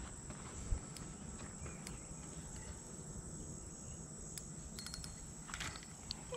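Insects, crickets or similar, trilling steadily in a high thin tone, with a second pulsing call joining for a few seconds, over a low outdoor rumble and a few faint clicks.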